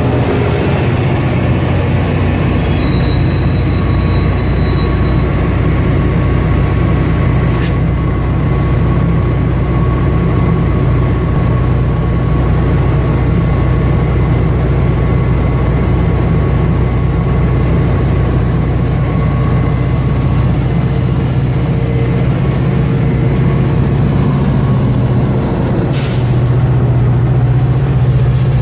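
Metra EMD F40-series diesel locomotive running close by at the station platform, a loud, steady engine drone.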